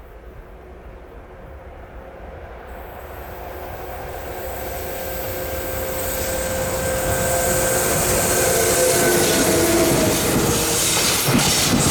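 An electric train approaching along the track, growing steadily louder, with several steady whining tones that drop a little in pitch as it draws near. Near the end come sharp clacks of wheels over the rails.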